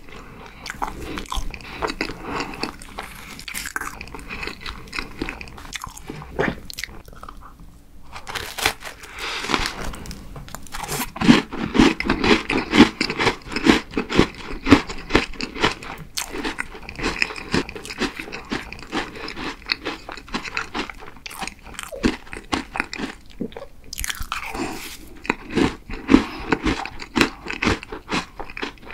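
A crisp chocolate chip cookie being bitten and chewed close to the microphone: dense crunching, loudest in a stretch about a third of the way in and again near the end, with a brief quieter pause about a quarter of the way in.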